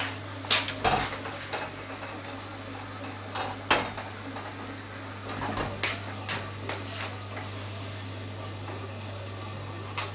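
Small magnet figurines clacking against a metal refrigerator door as they are handled and pressed back into place. There are a dozen or so sharp clicks, the loudest in the first four seconds and one more near the end, over a steady low hum.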